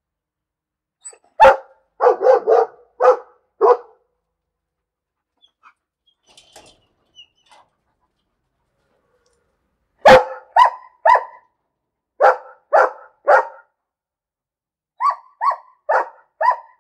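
A dog barking in quick runs of short, sharp barks: about five barks a second or so in, a pause, then more runs of three to five barks from about ten seconds on.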